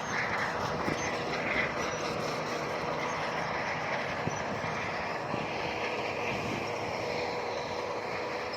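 Heavy earthmoving machinery running steadily: a diesel engine's constant drone with metallic clanking and rattling, and a few faint knocks.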